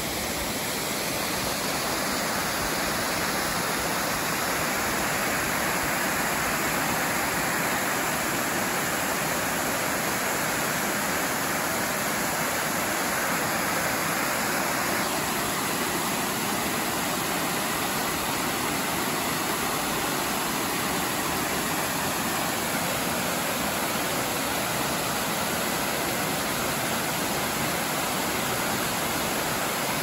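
Running water: a shallow mountain stream rushing over rocks, then a small tiered waterfall cascading into a pool. A steady rush that changes in tone about halfway through.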